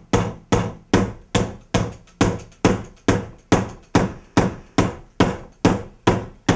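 Steady, rhythmic knocking on a wooden tabletop struck with a long thin implement, a little over two knocks a second. Each knock is sharp and dies away quickly with a short, low ring.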